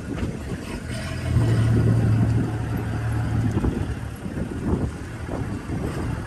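Vehicle engine running with a low rumble; a steady low hum comes up about a second in and eases off after about three and a half seconds.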